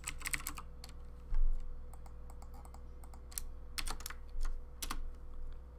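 Loud computer keyboard typing: quick runs of keystroke clicks near the start and again from about three to five seconds in. A dull low thump comes about a second and a half in.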